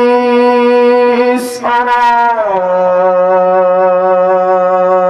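A man reciting the Quran in melodic tajweed style, holding long, drawn-out notes. A short hiss comes about a second and a half in, then the voice glides down to a lower note and holds it.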